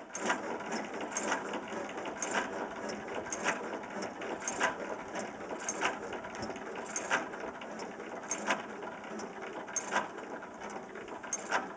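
12 hp Domestic Type A single-cylinder gas engine running slowly: a sharp firing beat about every second and a quarter, with lighter mechanical clicking and clatter between the beats.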